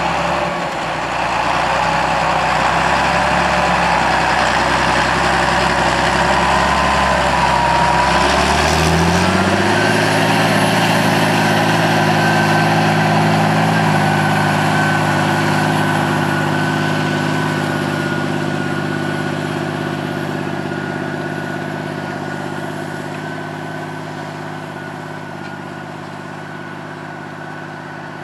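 John Deere 8200 tractor's six-cylinder diesel engine running steadily, then revving up about nine seconds in and holding a higher engine speed with a steady whine over it as the tractor pulls away with the plough in the ground, growing fainter.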